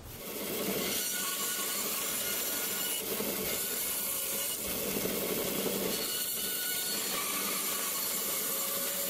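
Small bandsaw cutting through a wooden board along a curve. The cutting noise runs steadily over the motor and blade, swelling and easing a few times as the wood is fed. The blade is a cheap one with very little set.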